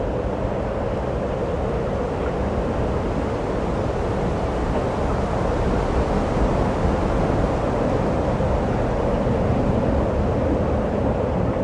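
A steady, low, noisy sound effect accompanying an animated title sequence, with no clear tone or beat, swelling slightly in the middle.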